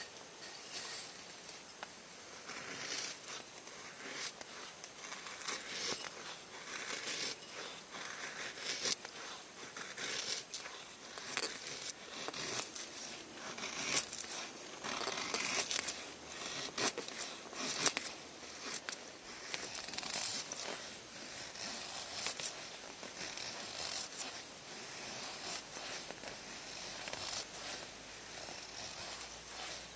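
Irregular rustling and crinkling of material being handled, with scattered sharp clicks and taps.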